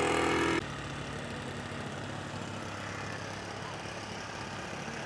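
Small model aircraft engine running loud and fast, stopping abruptly under a second in; a fainter, lower engine sound then runs on steadily, like an engine idling.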